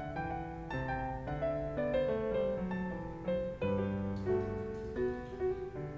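Background music: a piano playing a melody, one note after another.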